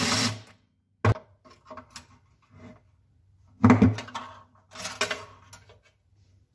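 Metal tools and engine parts handled on a wooden workbench: a few separate clunks and clatters, the loudest about four seconds in.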